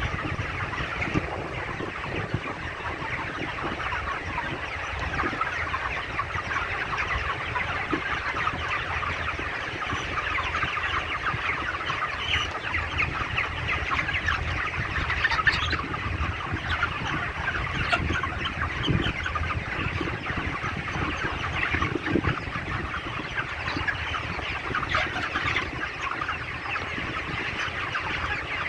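A large flock of broiler chickens clucking and calling, many short overlapping calls in a continuous chatter, with a steady low rumble underneath.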